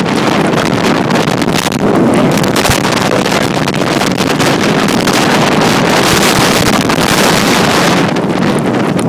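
Strong storm wind buffeting the microphone, with surf breaking along the lakeshore underneath. The gust strengthens about two seconds in and eases off near the end.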